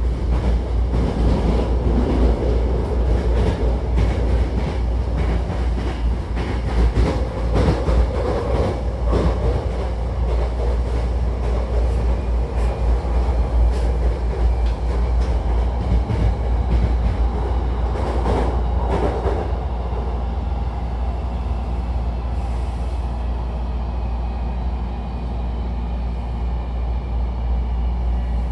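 Inside a Hankyu electric train car while it is moving: a steady rumble of wheels and running gear, with frequent clicks of the wheels over the track. A faint whine comes in over the last several seconds.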